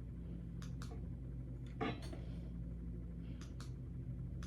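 Foundation being dabbed and blended onto the face: about five soft taps and clicks, one a little louder near two seconds in, over a steady low hum.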